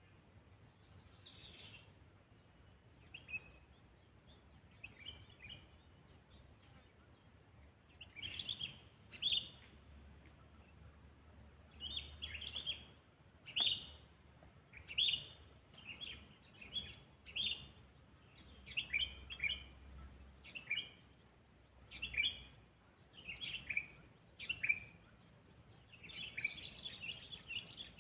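Sooty-headed bulbul calling in short, clear phrases: a few scattered calls at first, then phrases repeated about once a second from about eight seconds in. A faint steady high hiss runs underneath.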